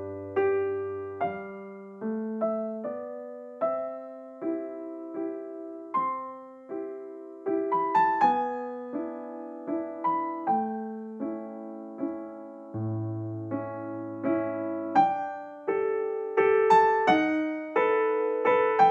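Background piano music: a gentle melody of single notes and soft chords, each struck and left to fade.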